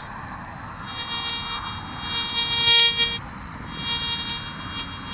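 Golden Mask GM2 metal detector giving a buzzing electronic tone as its coil is swept over a hole with a buried coin. The tone comes in about a second in, swells to its loudest just before the three-second mark, stops briefly, then resumes.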